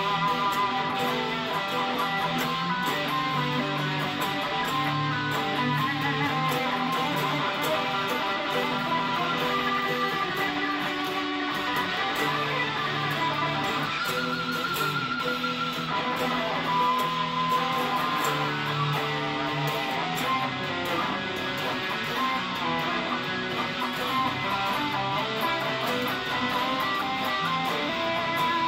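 Two electric guitars played together, one laying down repeating low riffs while the other plays a melody line, with a held, wavering note about halfway through.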